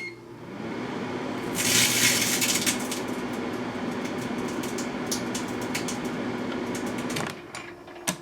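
A microwave oven hums as it runs with a metallized chip bag inside. The bag gives a burst of loud crackling about two seconds in, then scattered sharp snaps as it sparks and shrinks. The hum stops about seven seconds in, and a single click follows near the end.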